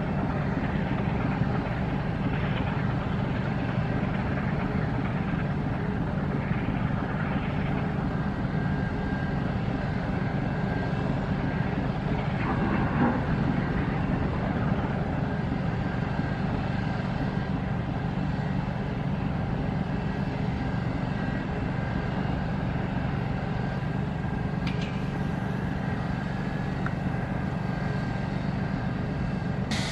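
Inland motor tanker's diesel engine running with a steady low drone as the vessel sails past, over a constant rush of noise.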